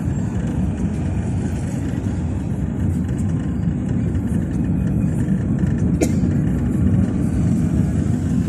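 Low, steady engine and road rumble heard from inside a car's cabin as it creeps along in traffic, with a single sharp click about six seconds in.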